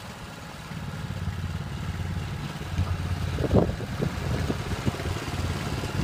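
Portable sawmill's petrol engine running steadily with a low, even pulse, with a few knocks and clatters about halfway through.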